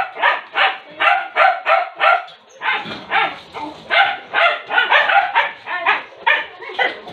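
A dog barking over and over, about three barks a second, with a short break about two and a half seconds in.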